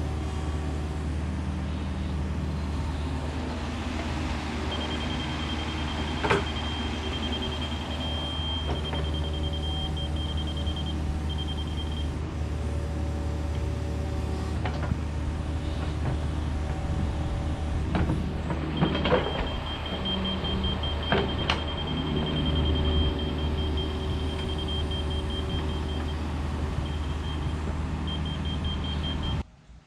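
A heavy machine's engine running steadily, with a few sharp clanks. A high, fast-pulsing tone comes in twice, once for several seconds early on and again through the second half.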